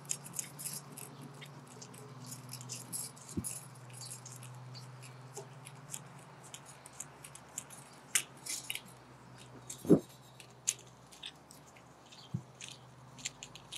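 Worm screws of pipe mounting straps being tightened with a hand tool: a run of irregular small clicks and ticks, with a louder knock about ten seconds in.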